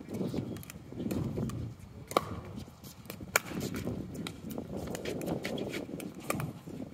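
Pickleball paddles striking a hard plastic ball during a rally: sharp pops, the two loudest a little over a second apart, with fainter hits around them. Under them is a low rumble of wind on the microphone.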